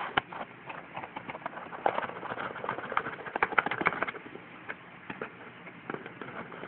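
Irregular clicks and taps over a rustling hiss, from a small speaker and its packaging being handled.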